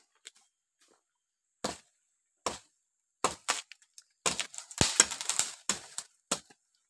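A series of sharp cracks and knocks: a few single ones, then a dense rapid cluster about four to six seconds in.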